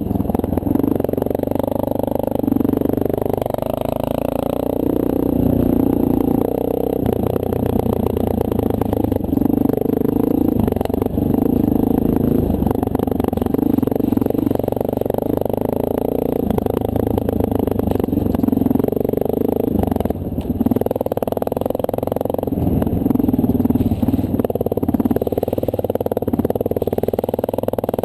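2009 Honda CRF230L dual-sport's single-cylinder four-stroke engine running as the bike rides the trail, its pitch rising and falling with the throttle, with a brief dip about twenty seconds in.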